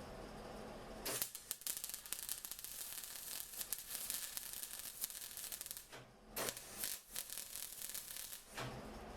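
MIG welding on a steel car chassis: a dense, crackling hiss in two runs, about five seconds and then about two seconds, with a short burst between them.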